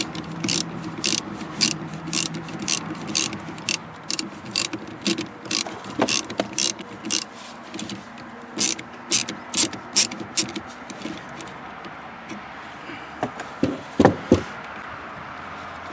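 Ratchet wrench clicking in short back-and-forth strokes, about two a second, undoing the nut on a car battery's positive terminal cable. The clicking stops about eleven seconds in, and a couple of louder knocks follow near the end.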